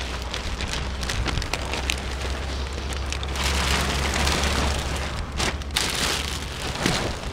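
Clear plastic plant sleeve crinkling and rustling as hands grip and tuck it around a potted house plant. The crackle grows densest about three and a half seconds in and again near six seconds.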